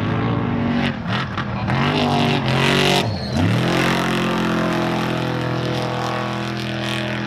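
Unlimited-class off-road race truck engine at high revs, its pitch rising and falling, dropping sharply about three seconds in and then climbing back to a steady high note as the truck accelerates past.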